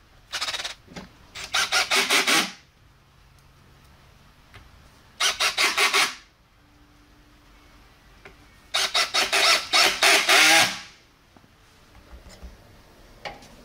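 Cordless power driver running in four short bursts, driving the screws that fasten a subwoofer into a wooden enclosure; the longest burst comes about nine seconds in and runs about two seconds.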